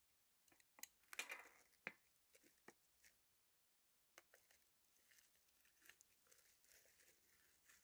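Faint rustling and tearing of packaging, with a few sharp clicks about a second in, then thin clear plastic film crinkling as it is peeled off a new laptop.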